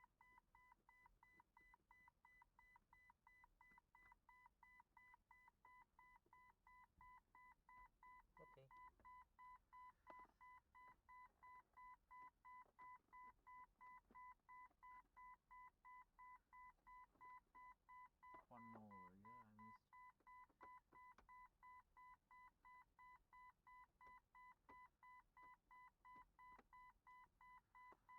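1999 Jeep Cherokee XJ's dashboard warning chime beeping faintly and steadily, about two beeps a second, set off by the headlight switch being pulled out of the dash.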